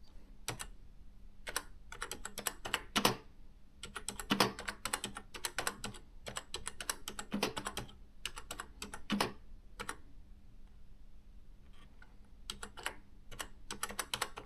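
Olivetti ET Compact 60 electronic typewriter being typed on: quick irregular runs of sharp printing strikes, with a pause of about two seconds past the middle before the typing resumes.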